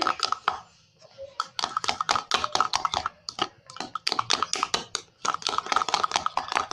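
Homemade slime being mixed: rapid runs of short, sticky clicking squelches, several a second, with a brief pause about a second in.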